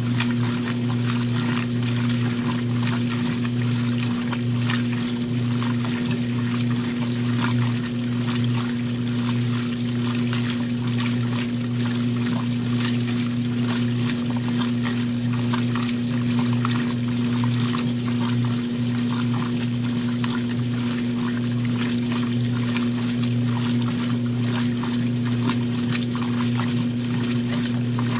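1962 RCA Whirlpool LJA70 top-loading washing machine with water pouring and splashing in the tub over a steady low electrical hum.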